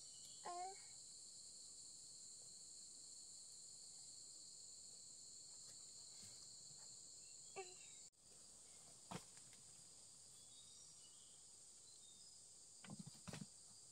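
Faint, steady high-pitched drone of forest insects, which breaks off for an instant about eight seconds in. A short falling call sounds twice, about half a second in and again about seven seconds later, and a few soft knocks come near the end.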